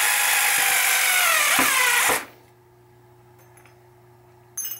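Cordless screwdriver running as it drives a screw, its whine sagging slightly in pitch as the screw tightens, then stopping about two seconds in. A short click near the end.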